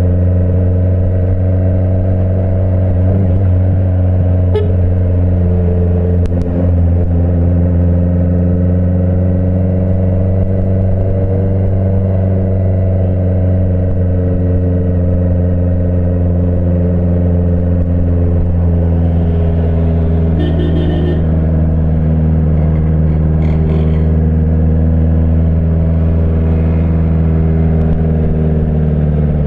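Honda CBR 650F's inline-four engine running at low, steady revs, its note drifting gently up and down and dropping near the end. A couple of faint clicks and two short higher-pitched sounds about two-thirds of the way through.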